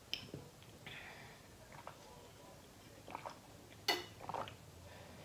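Faint drinking sounds from a plastic water bottle: quiet gulps and small mouth and plastic clicks, with one sharper click about four seconds in.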